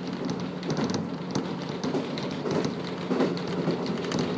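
Inside a KiHa 54 diesel railcar running along: the steady drone of its diesel engine under the noise of wheels on the rails, with a busy patter of small clicks and rattles from the car.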